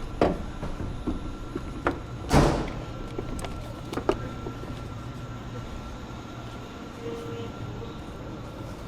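Knocks and clunks of car parts being handled and refitted, with one louder thud about two and a half seconds in, over a steady low hum.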